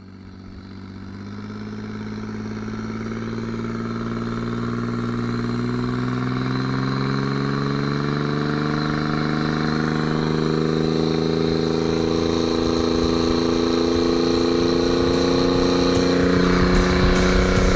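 Twin-turbocharged Honda BF225 V6 outboard running, its engine note climbing steadily in pitch and growing louder. A rougher, noisier edge joins near the end.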